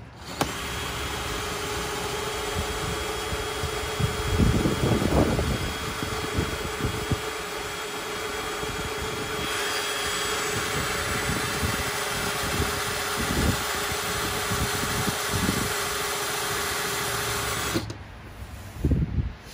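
Cordless drill running steadily, boring out a bigger bolt hole in the truck's rusty steel mirror bracket. Its whine gets harsher about halfway through, and it stops shortly before the end.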